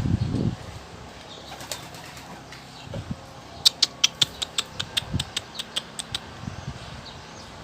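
Domestic pigeons' wings flapping, with a rapid run of sharp wing claps, about five a second for two and a half seconds, in the second half. A few low thumps come right at the start.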